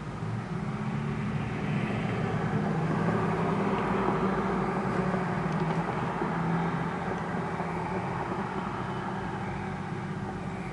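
Diesel locomotive engine running as the locomotive moves slowly through the yard, growing louder over the first few seconds and then easing off slightly.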